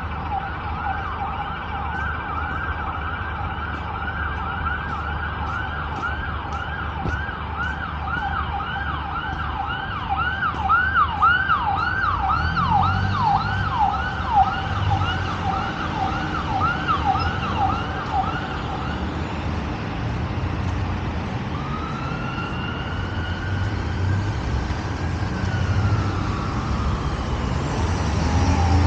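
Emergency-vehicle siren in a fast yelp, its pitch rising and falling about twice a second, loudest around the middle. It stops about two-thirds of the way in, followed by a few slow wailing glides over the rumble of road traffic, which grows louder near the end.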